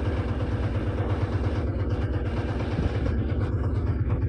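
An engine running steadily at idle, a low, fast, even pulse with a hum above it.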